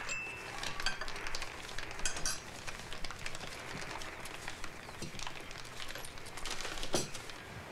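Cups and cutlery clinking and tapping on a table, a scatter of small clicks throughout, with the sharpest one near the end.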